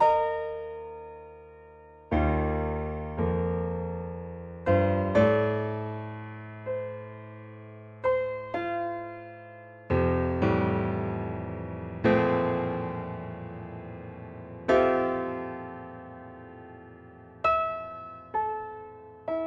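Slow piano music: chords and single notes struck every second or two, each left to ring and fade.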